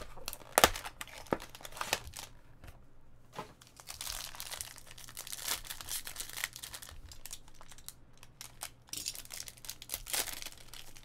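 A sealed hockey card pack's foil wrapper being torn open and crinkled by hand, with dense crackling of the wrapper in the middle and again near the end. A couple of sharp snaps in the first second or so come from handling the cardboard box.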